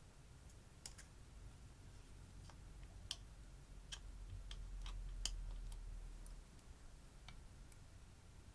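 Slime being worked by hand: faint, irregular sticky clicks and pops, about ten of them, most packed into the middle of the stretch, over a low handling rumble that swells and fades.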